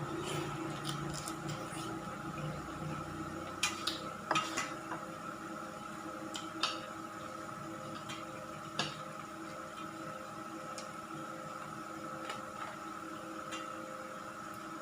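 Cutlery clinking and scraping against a dish as someone eats, a few scattered sharp clinks, the loudest cluster about four seconds in, over a steady background hum.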